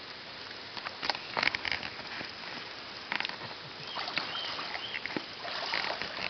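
Koi splashing and thrashing in water in several irregular bursts, with a few short high chirps in between.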